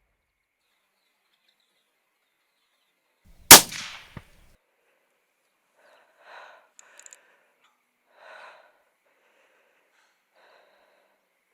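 A single hunting rifle shot about three and a half seconds in, very loud and sudden with a short ringing tail, followed under a second later by one smaller sharp crack. A few faint soft sounds come after it.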